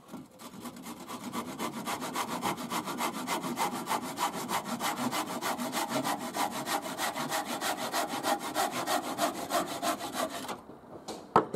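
A Bahco 244 handsaw cutting off a timber rafter foot in fast, even strokes. The sawing stops about ten seconds in, and a sharp knock follows.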